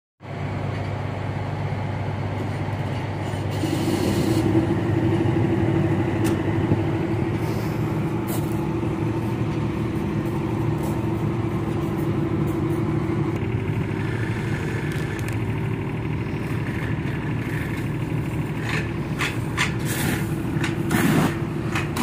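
Pressure washer running steadily: a continuous machine drone, joined by a steady hum about four seconds in. A few sharp clicks come near the end.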